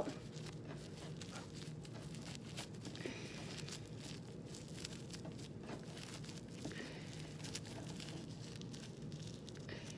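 Plastic wrap with baking soda inside crinkling faintly as it is rolled up tight by hand, in many small scattered crackles.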